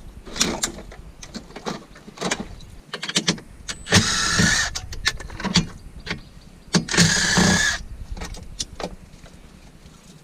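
Cordless drill with a socket whirring in two short runs, about four and seven seconds in, amid sharp clicks and knocks of plastic trim, wires and parts being handled.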